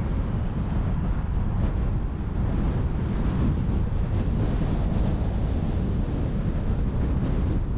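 Steady low rumbling noise of wind buffeting the microphone, with no distinct events.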